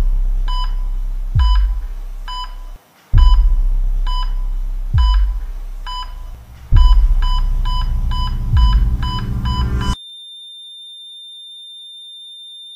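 Teaser sound design: deep bass booms under a short electronic beep repeating about every half second, the beeps quickening toward the end. At about ten seconds it all cuts off into one steady high tone.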